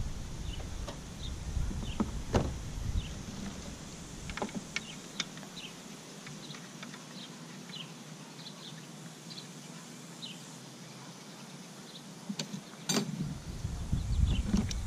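Scattered light clicks and taps of hand work on metal parts in a car's engine bay, as the brake master cylinder's mounting bolts are put back on by hand. Faint bird chirps are in the background, and wind rumbles on the microphone at the start and again near the end.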